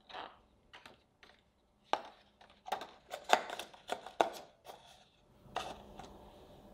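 A clear acetate cake collar crinkling and clicking as it is bent and fitted inside a stainless steel heart-shaped cake ring. Scattered sharp crackles and taps come in a quick run in the middle, with a last one near the end.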